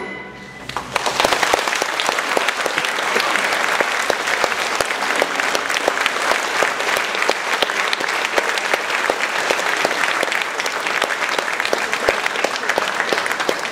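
Audience applauding a symphony orchestra and singer, the clapping starting about a second in as the last orchestral note dies away and then running on steadily.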